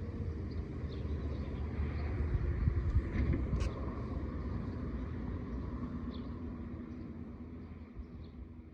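A vehicle going by: a low rumble that swells to its loudest about three seconds in, then fades away. In the first half-second a faint falling tone, the tail of a distant tornado siren winding down, is still heard under it.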